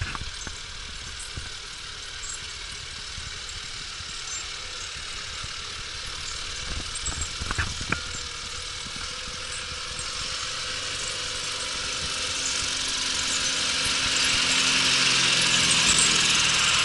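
Zetor 9540 tractor's diesel engine approaching and growing steadily louder through the second half, its engine note rising out of a hissing rush. A few short knocks sound about seven to eight seconds in.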